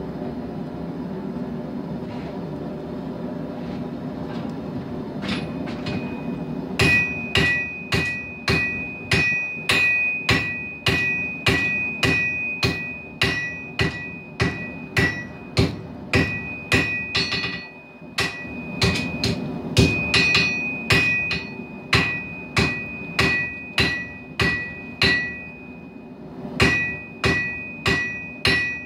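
Hand hammer striking hot steel on an anvil, about two blows a second, each with a bright ring from the anvil; the hammering starts about seven seconds in and pauses briefly a few times. Before it, the steady running noise of the forge.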